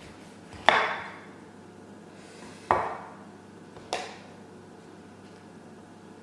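Three sharp kitchen knocks, each with a short ring: a utensil struck against a hard surface. The first is the loudest, the second follows about two seconds later, and the third about a second after that.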